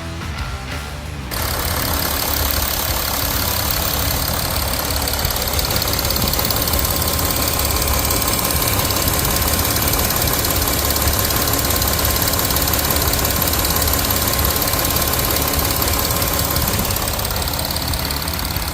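Volkswagen Touareg 3.0 TDI V6 diesel engine running steadily. It comes in suddenly about a second in, after a brief stretch of music.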